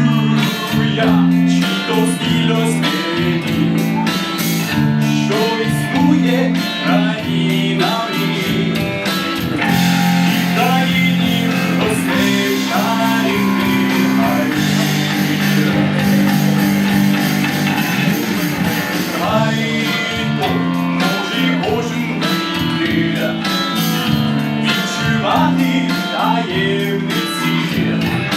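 Band playing live music, an instrumental passage with guitar to the fore over held low notes.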